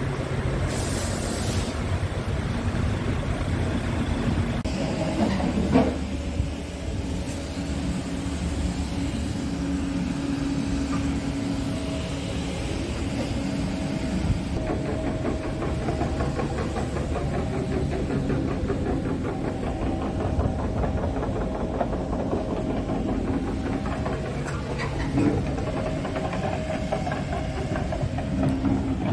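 Scania R tractor unit's diesel engine idling steadily, with a couple of brief knocks about six seconds in and near the end.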